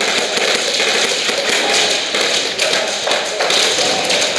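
Irregular sharp taps and thuds over a dense clatter: airsoft shots and BBs striking during close-quarters play.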